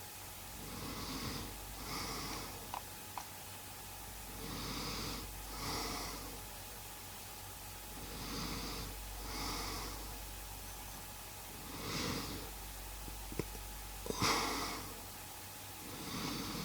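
A man snoring in his sleep: slow, even breaths in and out, one cycle about every three and a half seconds. A few faint clicks come between the breaths.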